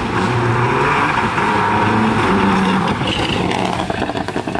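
Subaru Impreza N12b rally car's turbocharged flat-four engine running hard, its pitch rising and falling with throttle and gear changes, over steady road noise.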